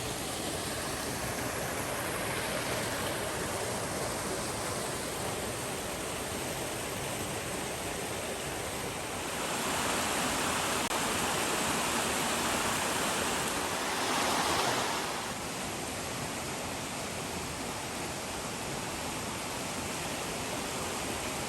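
Steady rush of flowing water, growing louder partway through and peaking near the middle before settling back.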